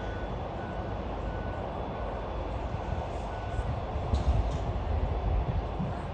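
Steady outdoor stadium ambience with a low rumble, and a faint short high beep repeating a little under once a second.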